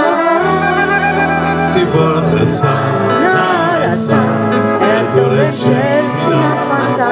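Live accordion and flute music: held accordion chords under a flute melody with a wavering vibrato, played as an instrumental passage between sung verses.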